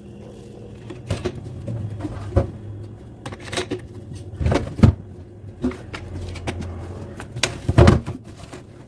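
Irregular knocks and clicks of objects being handled over a steady low hum, the loudest about halfway through and again near the end.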